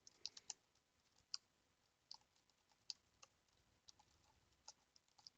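Faint, irregular computer keyboard keystrokes and clicks, a row of typing while data is entered into a spreadsheet row.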